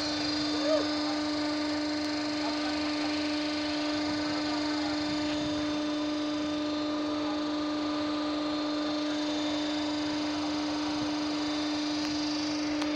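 Shipboard deck machinery running with a steady, unchanging hum on one low-middle tone. A short chirp-like squeak comes just under a second in.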